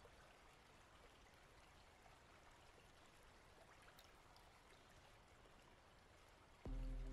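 Near silence: a faint, even outdoor hiss with nothing distinct in it. Near the end, music comes in suddenly with low sustained notes.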